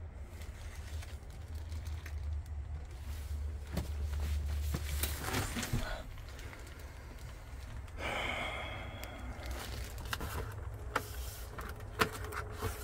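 Rustling and handling noise inside a truck cab, with scattered clicks and taps from hands on the dashboard plastics. A low rumble sits under the first few seconds.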